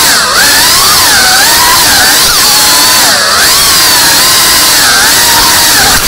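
FPV racing quadcopter's brushless motors and propellers whining loudly, heard from the onboard camera, the pitch swinging up and down about once a second with the throttle as it manoeuvres.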